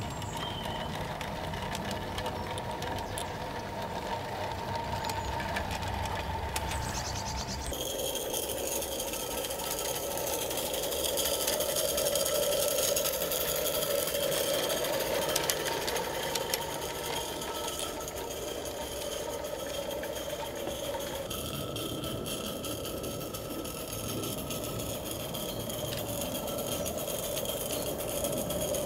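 Small garden-railway model locomotives running along the track with a train of open wagons: a steady mechanical running sound with fine rapid clicking. It changes character abruptly about a quarter of the way in and again about two-thirds of the way through.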